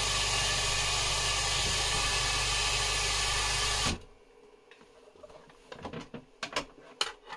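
Medo LA-80B linear air pump running with a steady electric hum, which cuts off suddenly about four seconds in as it is switched off at the plug-in power meter. After that, a few scattered clicks and knocks of the pumps being handled.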